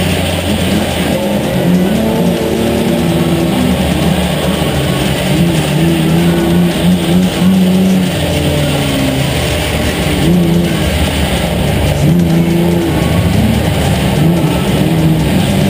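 Race car engine heard from inside the cabin, its pitch rising and falling over and over as the driver gets on and off the throttle in traffic, with the engines of other cars around it.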